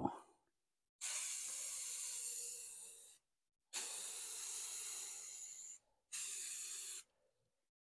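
Aerosol spray can hissing in three passes, about two seconds, two seconds and then one second long, laying a very light mist coat of paint.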